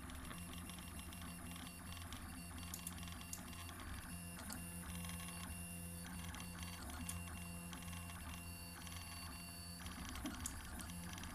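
Prusa i3 3D printer at work, its stepper motors whining in short steady tones that change pitch every second or so as the print head moves, over a steady hum and small clicks.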